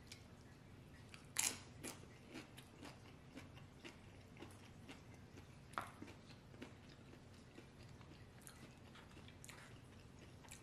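Faint chewing of a tortilla chip topped with guacamole: many small crunches and mouth clicks, with two sharper crunches, one about a second and a half in and one about six seconds in.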